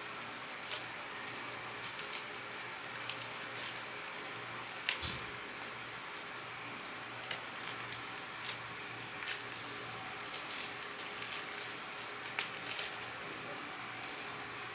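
Stiff plastic packaging being pried and worked open by hand: scattered crinkles and sharp clicks, the loudest about five seconds in, over a steady background hiss and hum.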